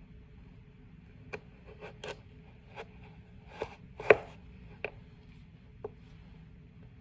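Chef's knife cutting through a raw carrot and knocking on a plastic cutting board: about eight separate, unevenly spaced chops, the loudest a little past the middle.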